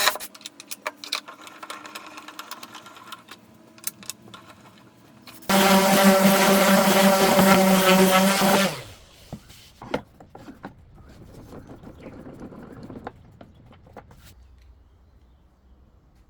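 Scattered clicks and knocks of tool work, then a small electric motor, as in a power tool, runs steadily for about three seconds from about five seconds in and stops, followed by a few more light knocks.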